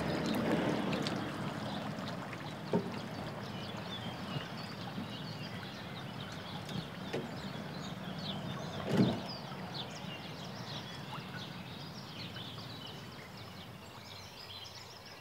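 Water pouring and dripping from a landing net as it is lifted out of the river with a fish in it, fading over the first couple of seconds, then a few knocks of the net and fish being handled on a concrete platform, the loudest about nine seconds in.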